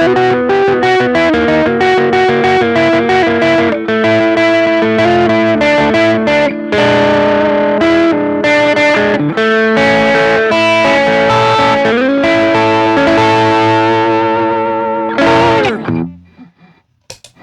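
Electric guitar played through a compressor and overdrive pedal chain (Ross compressor reissue, Tube Screamer, Stone Deaf PDF-2, Fulltone Fat-Boost), with a distorted, sustaining lead line of string bends and vibrato. The playing stops a second or so before the end.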